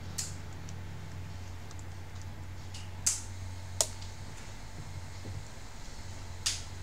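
Small hard clicks and taps of laptop parts being handled as the laptop's cooling fan and heat-pipe assembly are worked loose. Four sharper clicks stand out, spread across the few seconds, over a steady low hum.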